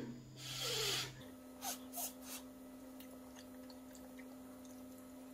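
A person slurping up a mouthful of instant noodles in one short hissing pull about half a second in, followed by a few soft eating sounds. After that only a faint steady hum remains.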